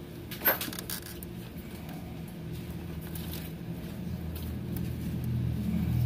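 A steady low engine-like hum that grows louder toward the end, with one sharp click about half a second in.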